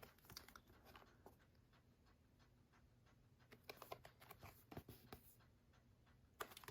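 Faint rustling, light scraping and soft taps of hands handling a cardboard collector's box, with a cluster of them partway through and a sharper tap near the end.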